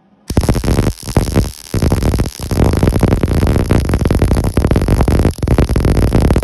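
MIG welder arc crackling and buzzing as a bead is laid around a fitting on a steel air tank. It starts suddenly just after the beginning and stops and restarts briefly a few times as the trigger is released.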